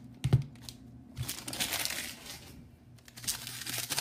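Foil baseball card pack wrappers crinkling as packs are handled and opened, with a sharp knock about a third of a second in and a softer one just after a second in.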